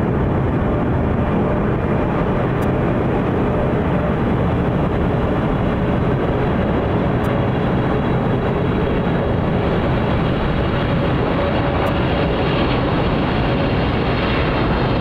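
Boeing 777 twin jet engines, a loud steady rushing with a faint hum, growing slightly brighter in the last few seconds.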